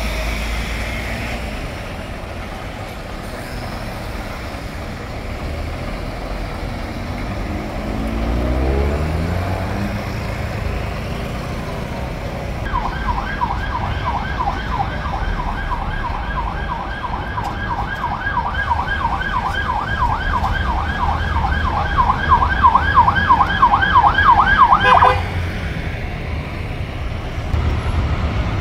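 Emergency-vehicle siren on a fast yelp, warbling up and down several times a second over road traffic noise, then cutting off suddenly. Before it, a passing vehicle's engine note falls in pitch.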